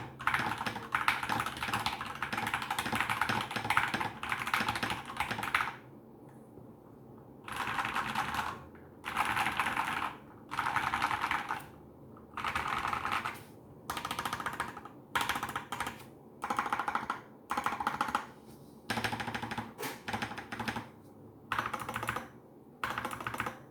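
Keychron K2 v1 mechanical keyboard, foamed, with Krytox 205g0-lubed Gateron Yellow linear switches, typed on fast: about six seconds of steady typing, a short pause, then a string of quick bursts about a second long each.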